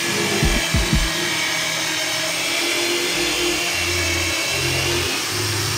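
Corded electric drill mounted in a drill stand, running steadily as it bores into a block of wood.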